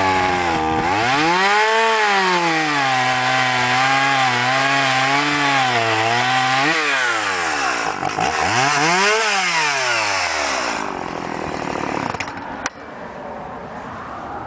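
Stihl MS-170 two-stroke chainsaw revved up and cutting into a Douglas fir log: engine pitch climbs at the start, then drops and holds lower for several seconds as the chain bogs in the wood. It rises freely twice before settling back toward idle after about ten seconds, with one sharp click a little later.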